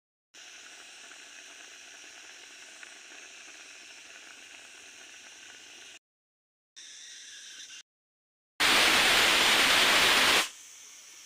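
A faint steady hiss from the simmering dal pot, broken by several abrupt cuts. About eight and a half seconds in, a much louder rushing hiss of steam, typical of a pressure cooker on a gas flame, lasts about two seconds, then drops back to a faint hiss.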